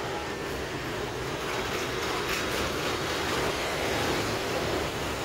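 Steady street traffic noise, a continuous rushing rumble with no single event standing out.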